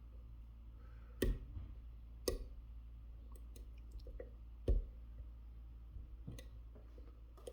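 Small clicks and ticks of a lock pick working the serrated pins of a Mul-T-Lock Interactive cylinder. There are three louder clicks: about a second in, about two seconds in and near the five-second mark, with fainter ticks between them.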